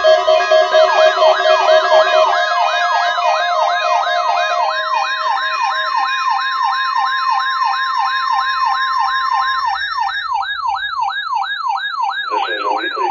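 Electronic siren yelping, its pitch sweeping rapidly up and down about three times a second, while steady music tones die away in the first two seconds. Near the end, short buzzy bursts of data tones begin: the EAS/SAME header of the weekly test.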